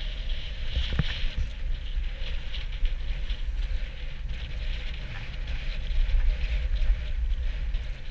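Wind rumbling on the camera's microphone with the scraping hiss of a snowboard sliding over groomed snow on a downhill run. A single sharp knock about a second in.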